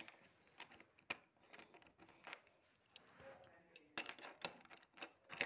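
Scattered light clicks and taps of a Cruz Ramirez colour-changing toy car's body shell being pressed and fitted onto its chassis, with a quick run of clicks near the end.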